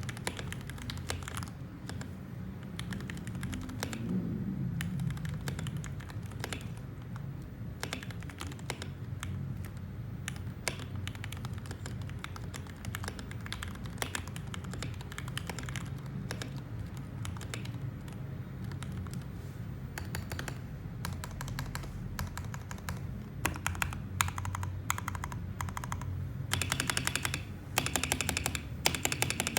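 Typing on a Tester68 mechanical keyboard with Gateron Milky switches and modded stabilizers: a steady stream of key clacks that turns faster and louder in the last few seconds.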